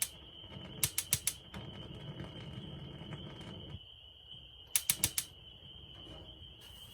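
Propane heater's spark igniter clicking in two quick bursts of about five clicks each, about a second in and again near five seconds, as it tries to light the pilot. A faint steady high tone runs underneath.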